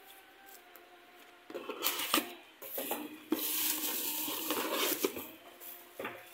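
Cookware and utensils clinking and clattering, with a steady hiss for about two seconds in the middle.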